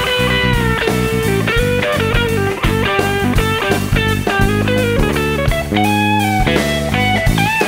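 Live jazz-funk trio of electric guitar, electric bass and drum kit playing; the distorted electric guitar carries the lead with held notes that bend in pitch, over bass and drums.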